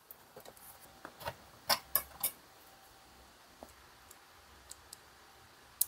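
Small electronic parts being handled with metal tweezers: a few light clicks and ticks, loudest in a quick run of three about two seconds in, then only sparse faint ticks.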